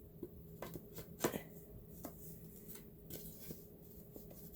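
Click-and-lock laminate flooring planks being fitted together by hand: a string of light clicks, taps and rubbing as one plank's edge is worked into the other's groove, with the loudest knock a little over a second in.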